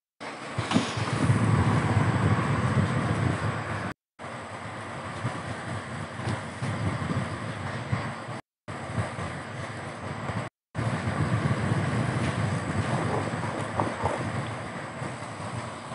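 Road and engine noise of a car driving along a paved road, with wind buffeting the microphone. The sound cuts out completely for a moment four times.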